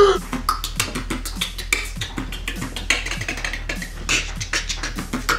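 A quick, dense run of percussive clicks and pops over short low thumps, in the manner of beatboxing.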